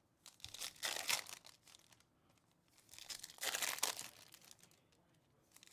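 Foil trading-card packs being crinkled and torn open by hand, in two bursts of about a second each, the louder one about three seconds in.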